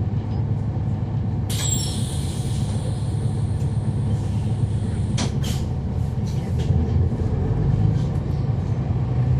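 Inside a NABI 40-SFW transit bus, its Cummins ISL9 diesel engine running with a steady low rumble that grows a little louder near the end. About a second and a half in, a hiss of air starts and lasts a few seconds, followed by a few sharp clicks.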